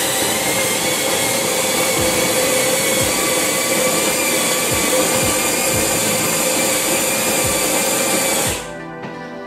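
Miele CVA6805 built-in coffee machine's grinder grinding beans for a cup of coffee: a loud, steady mechanical grinding that cuts off about eight and a half seconds in.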